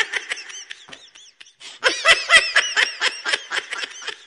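A man laughing heartily in quick, repeated hee-hee bursts. The laughter is strongest from about two seconds in and then tails off.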